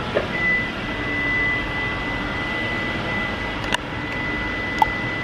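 Steady mechanical rushing noise with a continuous high-pitched tone held throughout, and two sharp clicks in the second half.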